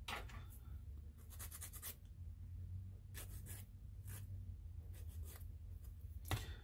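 Faint scratching and scattered light clicks from hands handling a fiber optic strand and a plastic model hull, in small clusters over a low steady hum.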